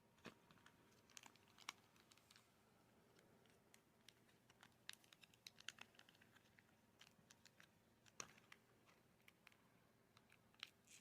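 Small plastic toy pieces and packaging handled by hand: faint, irregular clicks and taps, a few of them sharper.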